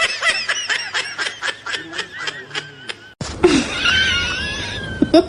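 Laughter in quick, evenly spaced bursts, about four or five a second. It cuts off suddenly about three seconds in, and a different pitched, sliding sound starts.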